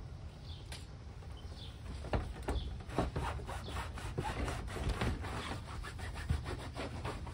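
Irregular rustling and scraping with many small clicks, thickest in the latter part, with a bird chirping about once a second in the background.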